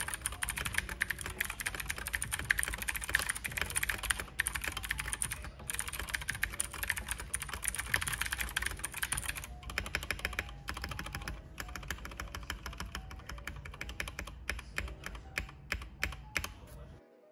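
Typing on a Keychron K2 mechanical keyboard with clicky Gateron Blue switches, tape-modded with foam under the PCB. Rapid, continuous keystrokes slow into separate key presses over the last few seconds, then stop.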